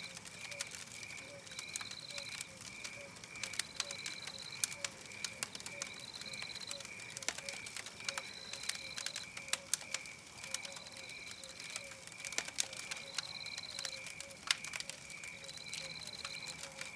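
Wood fire crackling with frequent sharp pops, over a looped night-forest soundscape of evenly repeating chirps: a quick pulsing chirp about two and a half times a second and a longer, higher call about every second and a half.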